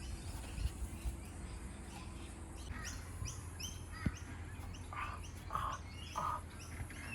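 A bird chirping in a fast run of short, high notes, about three a second, starting a few seconds in, with a few lower calls among them. There is a single sharp click about four seconds in, over a steady low rumble.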